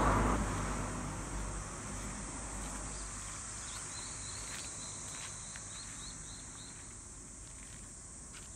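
Insects chirping in a steady, high-pitched outdoor chorus. Midway comes a run of about eight short chirps. A low rumble at the start fades out within about two seconds.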